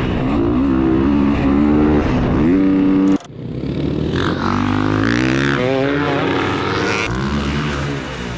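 Motocross dirt bike engines revving up and down, with an abrupt cut to another bike's revs about three seconds in.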